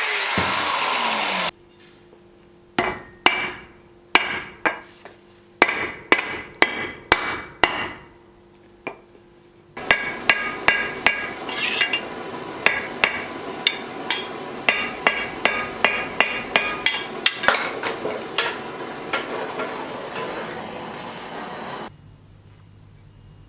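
A hammer tapping on metal during knife handle work: a run of sharp, ringing strikes, about two a second, then, over a steady machine-like noise, a quicker series of lighter taps. Near the start a power tool's sound cuts off, and the steady noise later cuts off suddenly.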